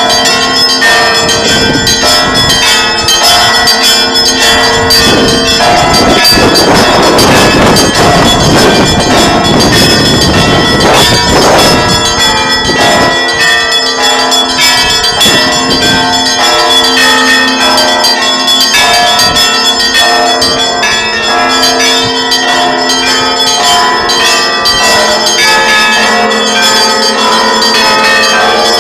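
Church bells ringing together, several bells of different pitches sounding over one another. A rushing noise lies over the bells from about six to twelve seconds in.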